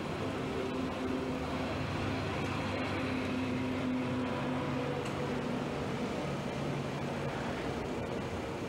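Road traffic: a steady hum of vehicle engines running, with the pitch of one engine shifting about halfway through.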